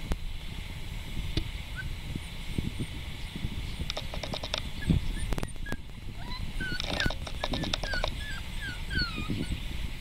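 Schnauzer puppy whimpering in short, high squeaks, most of them in the second half. Short runs of rapid clicking come twice.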